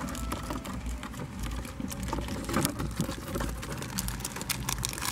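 Small rodent's claws scrabbling and skittering on a hard plastic tub: a run of quick, light clicks and scratches over a low rumble.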